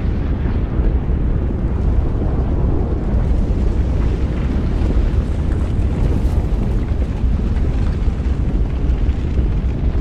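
Volcanic lava-planet ambience: a steady, deep rumble with a fainter hiss above it and no distinct blasts.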